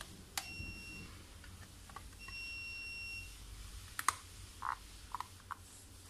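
Two steady high-pitched electronic beeps, the second about a second long, with sharp clicks and short knocks of the hair dryer's plastic housing halves being handled and fitted together.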